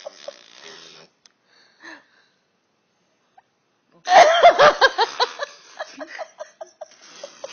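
A woman bursting into loud, hysterical laughter about four seconds in, which breaks down into rapid, breathless short laughs, about four or five a second. A few faint short sounds come in the first second before a pause.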